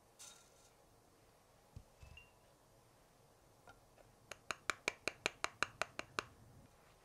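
A quick run of about eleven light, bright clinks, roughly five a second, as a small glass dish is tapped against a stainless steel mesh sieve to knock the cornstarch out. There is also a single clink near the start and a soft thump about two seconds in.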